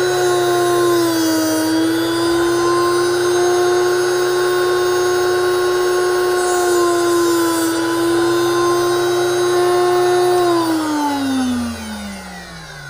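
Drill Doctor Handyman 250 drill bit sharpener running with a steady motor whine and grinding hiss while a drill bit held in its chuck is ground against the sharpening wheel. The pitch dips slightly twice. Near the end the motor winds down in falling pitch.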